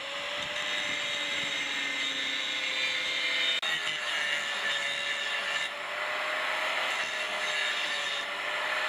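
A power tool cutting off a stuck length of pipe fitted to a bull bar: a steady hiss with a slightly wavering whine, broken briefly about three and a half seconds in.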